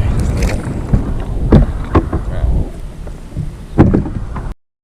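Wind buffeting an action camera's microphone, a loud low rumble broken by several knocks and bumps, cutting off suddenly near the end.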